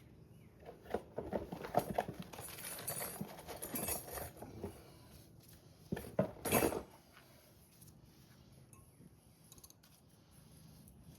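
Metal brake parts and hand tools clinking and rattling as they are handled, in a run of irregular clicks, with a louder burst of rattling about six seconds in.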